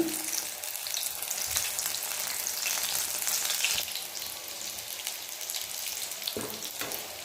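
Cut pieces of gram-flour battered chilli fritters sizzling and crackling in hot oil during a second fry, with small pops throughout.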